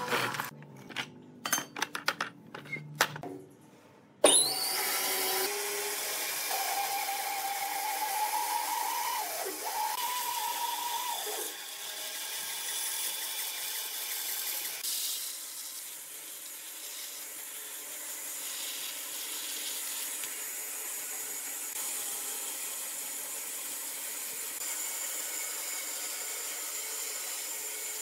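A run of sharp knocks, then about four seconds in a power tool starts and runs steadily against wood, its whine wavering for several seconds before settling into an even hiss.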